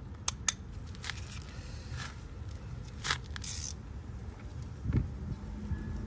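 Scattered metallic clicks and clinks of hand tools being handled, likely sockets and a wrench for the oil drain plug. There is a short scrape about three seconds in and a dull thump near five seconds, over a low steady rumble.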